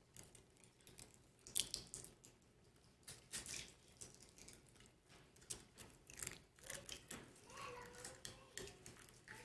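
Faint, scattered small clicks and taps of communion cups and trays being handled while the elements are taken.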